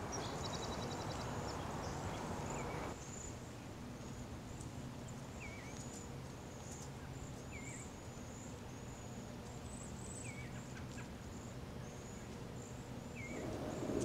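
Small songbirds calling: a quick high trill near the start, then a steady run of thin, high chirps with a lower slurred note every second or two. Beneath them is a constant low outdoor rumble that drops about three seconds in.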